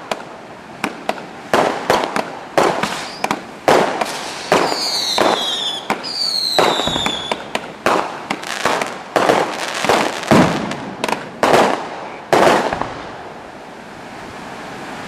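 Fireworks display: a rapid, irregular run of sharp bangs from bursting shells, with two high falling whistles from whistling fireworks about five and seven seconds in. The bangs thin out near the end.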